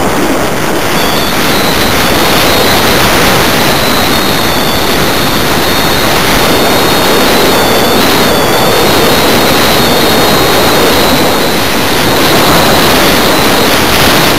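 Loud, steady rush of airflow over the microphone of a camera riding on board a 1/6-scale BAC IV model glider in flight, with a faint warbling high whine running through it.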